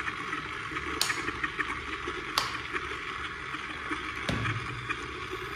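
Homemade table tennis robot running: the small 80 RPM DC motor turns the ball-feed disc with a steady noisy whir. Three sharp clicks come about one, two and a half, and four and a quarter seconds in.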